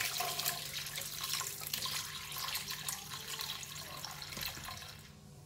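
Chicken stock poured in a steady stream from a pot through a fine-mesh strainer into a stainless steel bowl, the liquid splashing over the boiled vegetables and bones in the strainer; the pour slowly tapers off near the end.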